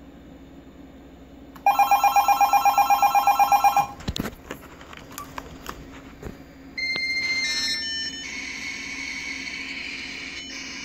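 A telephone rings once for about two seconds, its ring driven by a homemade ring-voltage box, followed by clicks and knocks as the phone cable is plugged in. About seven seconds in, a 14.4k dial-up modem handshake starts: a few steady tones, then a steady hiss as the modems connect.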